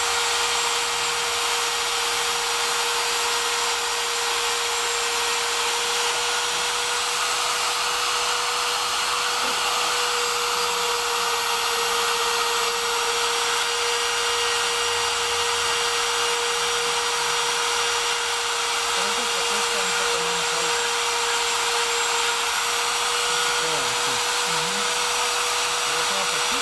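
Homemade CNC router's spindle motor running steadily with a constant high whine, cutting letters into wood.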